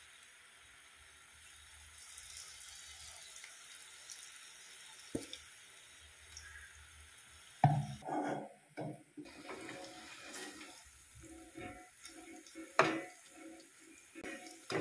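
Hot oil sizzling steadily as batter-coated cauliflower deep-fries in a pan. About halfway through there is a sudden loud clank, then more knocks and clatter over the sizzle.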